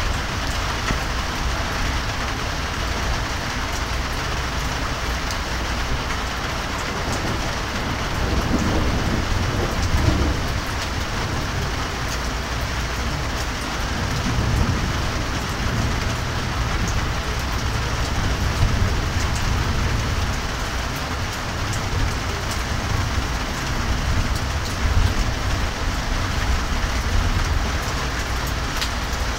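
Steady heavy rain falling during a thunderstorm, an even hiss with low swells that come and go a few times.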